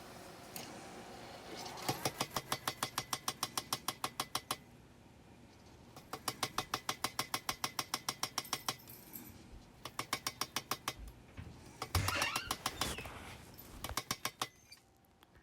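Power hammer striking hot steel in four runs of rapid blows, about five or six a second, with short pauses between runs.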